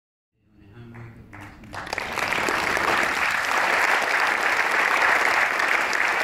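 Audience applauding, building up about two seconds in and then going on steadily.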